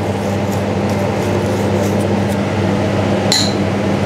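Steady machine hum of kitchen ventilation, with faint light ticks as roasted grated coconut is sprinkled onto the salad plate. A single sharp, ringing clink of ceramic crockery comes about three seconds in.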